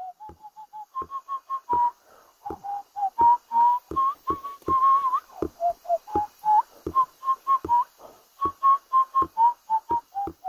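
A tune of short, clear whistled notes, two to four a second, each starting sharply and stepping up and down within a narrow range, with now and then a short upward slide at the end of a note.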